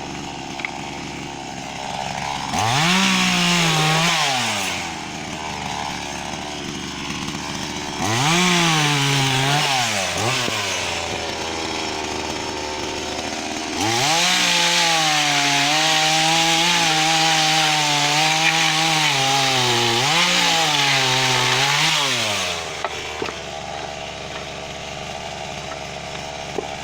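Chainsaw engine idling between three cuts through firewood. Each time it revs up and its pitch sags and wavers under load: two short cuts of a few seconds each, then a longer one of about eight seconds before it drops back to idle.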